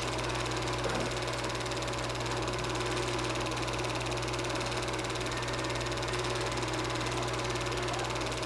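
Super 8 film projector running: a steady motor hum and whir with hiss that stays unchanged throughout.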